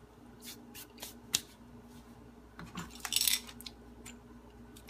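Small clicks and clinks from handling a manual burr coffee grinder, with a short scraping rattle about three seconds in, as it is opened up to reset its grind dial.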